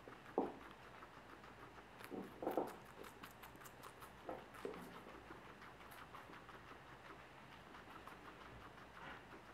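Guinea pig eating from a plastic bowl: a faint, quick run of small crunching and chewing ticks, with a few louder thumps about half a second, two and a half and four and a half seconds in.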